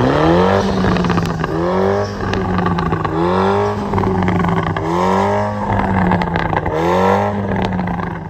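Mini John Cooper Works' turbocharged four-cylinder engine revved hard through its centre twin exhaust, with the sound-level meter held at the tailpipes. Five rev blips come in quick succession, each a quick rising surge that settles back, over a steady drone between them.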